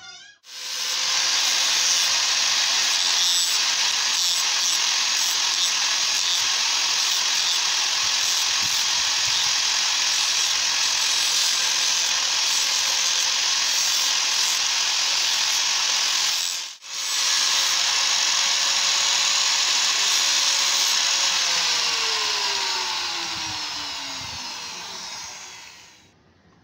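Electric angle grinder running, its abrasive disc grinding a metal spear blade with a harsh, steady hiss. Near the end the motor is switched off and winds down, its whine falling in pitch as it fades.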